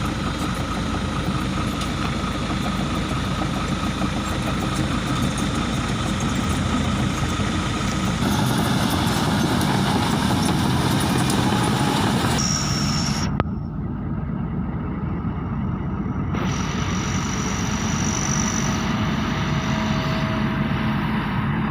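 Heavy diesel engine running steadily, its sound changing abruptly about eight seconds in and again around thirteen seconds.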